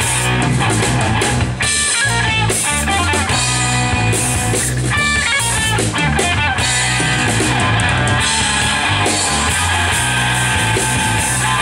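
Live instrumental rock band playing: electric guitar melody over electric bass and a drum kit, loud and continuous.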